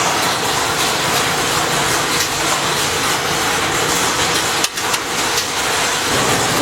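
Steady, dense noise of a CNC machine cutting metal, with a brief dip about three-quarters of the way through.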